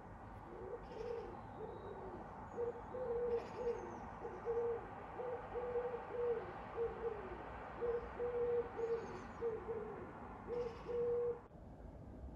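A loud pigeon cooing, its low call repeated in phrase after phrase, over a steady hum of distant traffic, with a few faint small-bird chirps. The cooing stops near the end.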